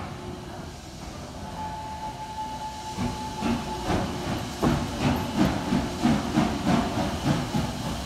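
Steam locomotive working: a short steady whistle tone, then exhaust chuffs starting about three seconds in, about three beats a second, growing louder.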